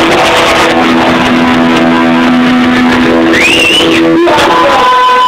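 Punk rock band playing live, loud and distorted in the recording: held guitar and bass notes, then a steady high feedback tone sets in about four seconds in.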